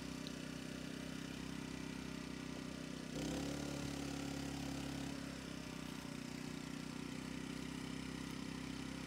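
Steady mechanical hum of a motor running in the background. It grows louder and fuller for about two seconds from around three seconds in, then settles back.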